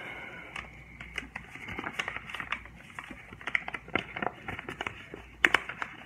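A sheet of origami paper being folded and creased by hand: irregular crinkling and rustling with sharp little paper snaps, the loudest a little past five seconds in.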